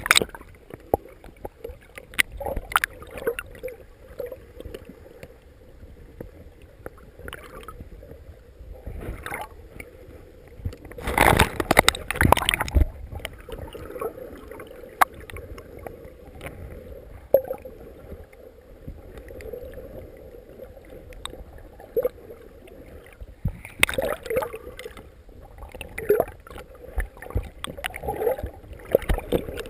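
Sounds of a small rowing boat on the water: water gurgling and sloshing around the hull, with scattered knocks and clicks. A louder rush of splashing noise comes about eleven seconds in and lasts about two seconds, and a cluster of louder knocks comes near the end.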